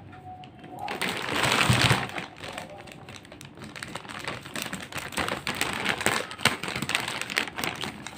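Thin plastic courier bag being handled and opened: a loud rustle and crinkle of plastic, then a run of small crackles and taps as it is pulled about.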